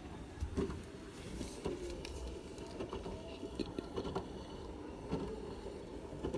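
Hotpoint WT761 Ultima washing machine drum tumbling a load of laundry, with water sloshing and irregular dull thuds as the clothes drop.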